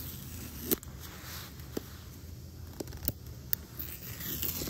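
Apple Watch Ultra's cardboard box being opened by hand: paper rustling and tearing, with four sharp snaps spread through it and a louder tearing rasp near the end.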